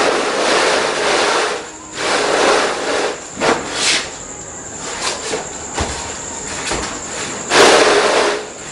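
A thin plastic (vinyl) flooring sheet rustling and crackling as it is flapped out and smoothed flat over a floor. It comes in several swishing bursts, the loudest at the start and again near the end.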